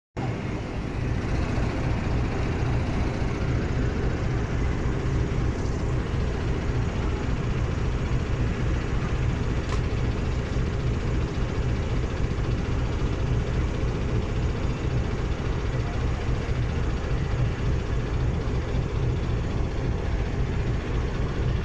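Diesel locomotive engine running with a steady low drone, heard close up alongside the locomotive's body.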